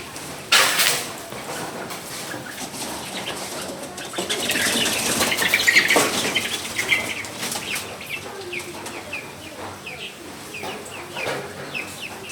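Chickens fighting: a sudden loud flurry of wing flapping about half a second in, then a longer, louder scuffle of flapping and squawks from about four to seven seconds, followed by short clucks, over a steady hiss of rain.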